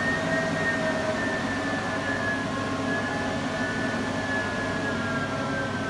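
A London Underground Northern line 1995 Stock train standing in the platform with its doors open, its onboard machinery giving a steady whine that slowly falls in pitch over a low hum.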